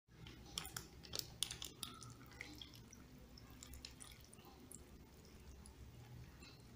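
Yellow soto kuning broth pouring and dripping from a plastic bag onto a plate of rice and vegetables. The bag crinkles, with several sharp clicks in the first two seconds, and the pour is faint.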